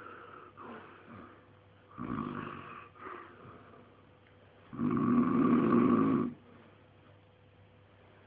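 A man snoring in his sleep, a snorer who snores on the in-breath as well as the out: a few short, soft snorts, then one long, loud snore about five seconds in.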